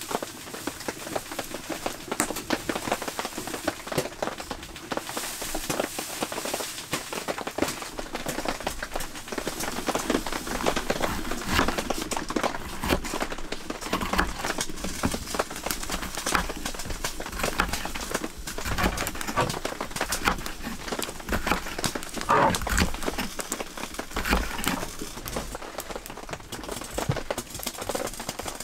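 Kitchen knife chopping green peppers on a wooden cutting board: a long, irregular run of taps and knocks, with some plastic bag rustling.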